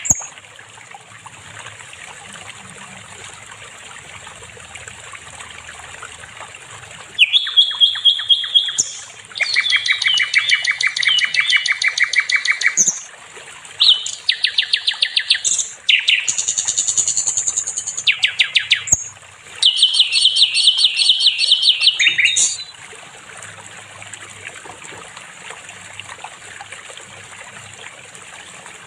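Sikatan londo flycatcher singing: several bursts of fast trilled notes, each a second or three long, in a run from about seven seconds in to about twenty-two seconds in, with long quiet stretches before and after.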